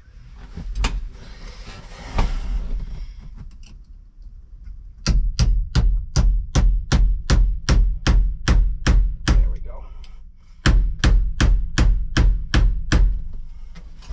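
A hammer striking a pin to drive it through the trailer air-brake handle. The blows come steadily, about three a second, for some four seconds; after a short pause a second run of about eight blows follows. A couple of lighter knocks come before the runs.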